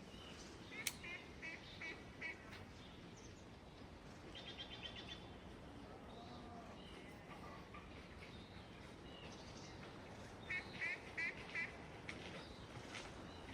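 Ducks quacking in short runs of about four calls, a few times, over a steady outdoor background hiss.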